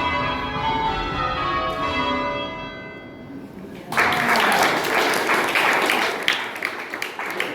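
Six cast-iron church bells ringing rounds, the last strikes dying away about three seconds in. Then applause breaks out suddenly about four seconds in.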